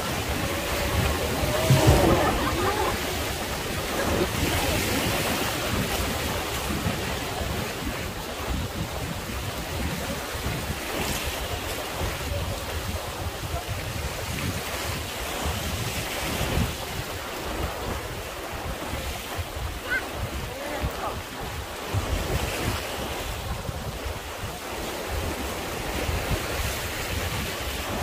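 River rapids rushing and splashing around a wooden river boat, with wind buffeting the microphone.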